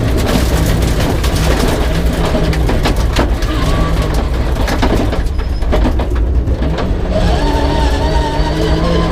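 Peugeot 306 rally car's engine working hard on a special stage, its pitch rising and falling with the throttle and gear changes and climbing again near the end, over a constant clatter of knocks and rattles.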